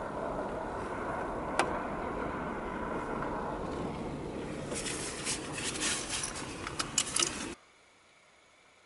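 Steady car-interior noise from a running vehicle, with a sharp click about a second and a half in and a run of clicks and rattles in the second half. It cuts off suddenly near the end to near silence.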